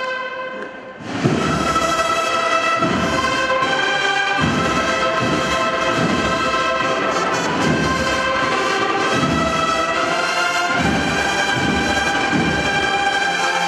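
Massed cornet-and-drum bands playing together: a held brass chord fades just before a loud full entry about a second in. The cornets then hold sustained chords while the drums mark a slow, heavy beat about every second and a half.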